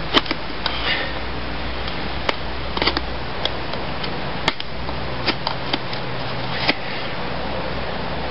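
Knife blade cutting and scraping into a wooden bow-drill hearth board to widen its notch: irregular small clicks and short scrapes over a steady background hiss.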